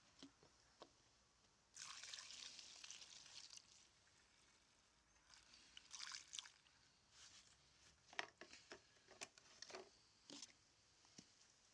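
Faint sound of two-stroke fuel mix poured from a plastic jerrycan through a funnel into a backpack blower's fuel tank. A steady pour about two seconds in, then scattered light clicks and knocks of the can and funnel.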